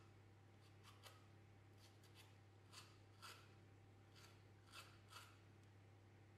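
Metal citrus zester scraping strips of peel off an orange: short, faint rasping strokes, one every half second to a second.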